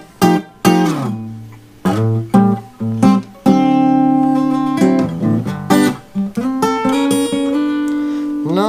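Acoustic guitar played solo, a run of picked notes and chords with sharp attacks; about a third of the way in a chord is left ringing for over a second before the playing picks up again.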